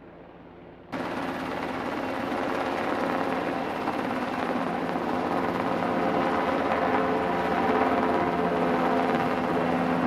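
MH-60 Seahawk helicopter flying close by: a loud, steady rotor and turbine noise with a steady whine through it, cutting in abruptly about a second in after faint background noise.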